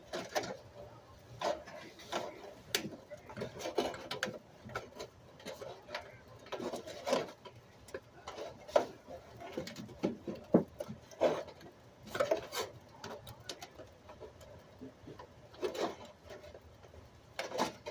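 Irregular light taps, clicks and knocks with rustling between them, a few to several a second, with no steady rhythm.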